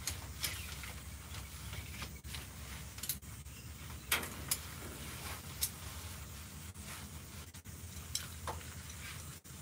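Hammock fabric rustling as it is bunched up and packed away. Several short sharp clicks and crackles come through it, over a low steady hum.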